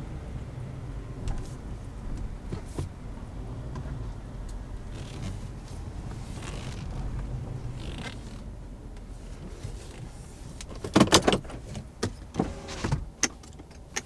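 Low steady rumble of a GMC SUV heard inside the cabin as it rolls slowly to a stop. About eleven seconds in come several loud clicks and knocks from inside the cab.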